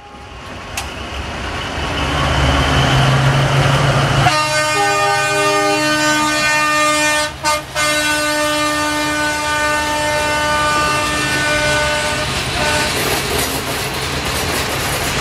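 CFR LDH diesel-hydraulic locomotive passing with a passenger train: the engine rumble builds as it approaches, then about four seconds in its horn sounds one long multi-tone blast of about eight seconds, broken twice briefly. The horn is followed by the rumble and clatter of the carriages going by.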